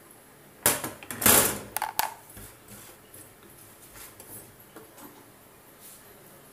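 Three short handling noises in the first two seconds, then low, steady room sound.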